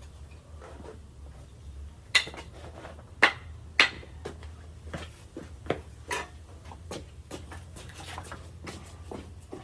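Irregular knocks and clatters of wooden pieces being handled and struck, the three loudest about two, three and almost four seconds in, over a steady low hum.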